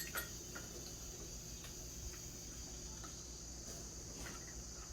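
Insects chirring steadily in a continuous high trill, with a few faint clicks.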